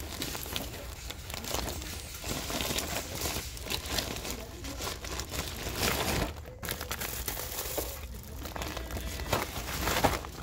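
Irregular rustling and crinkling with many light clicks and knocks, as things are handled close to the phone's microphone.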